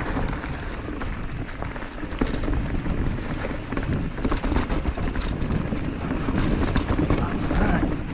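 Mountain bike riding fast down a rocky trail: tyres rumbling over rock, with many quick knocks and rattles from the bike. Heavy wind rumble on the microphone underneath.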